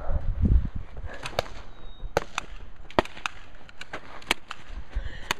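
Airsoft guns firing: about nine sharp snapping shots, irregularly spaced, starting about a second in. Low thumps of movement in the first half-second.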